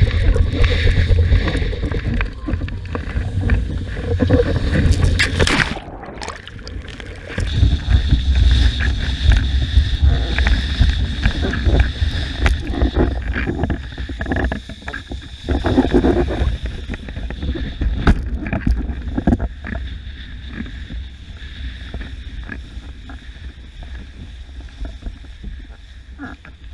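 Wind buffeting the microphone over rushing, splashing water as a windsurf board planes across the sea, with a heavy low rumble. A brief lull comes about six seconds in, and a steady high whine runs through the rest, which gradually quietens.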